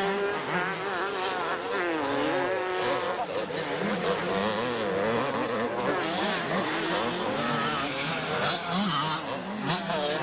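Motocross bikes' two-stroke engines racing around a dirt track, their pitch constantly rising and falling as the riders throttle on and off over the jumps, with more than one engine heard at once.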